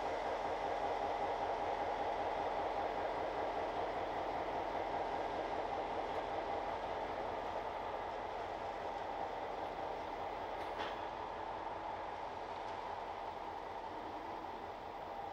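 Freight train running during switching, a steady noise that slowly fades, with one short click about eleven seconds in.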